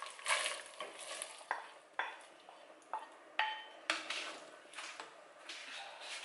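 Green peas poured from a bowl into a stainless steel pot of tomato broth, pushed out with a wooden spoon and then stirred in: tumbling, scraping and wet stirring. A few sharp knocks of spoon and bowl against the pot, one about three and a half seconds in with a brief ring.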